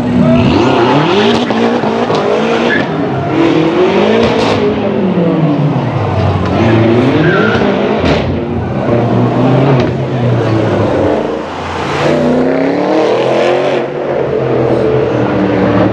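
BMW M6 convertible's twin-turbo V8 revving and accelerating hard through a concrete tunnel, its pitch climbing and dropping several times, with the exhaust echoing off the walls. Near the end a second sports car's engine climbs in pitch as it accelerates through.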